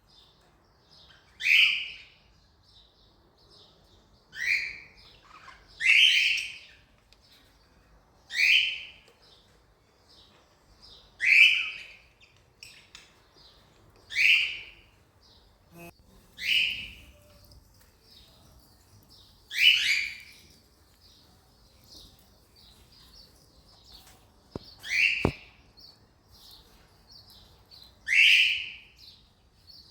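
Cockatiel calling: loud, short, sweeping calls that repeat every two to three seconds, about ten in all, with soft high chirps in between.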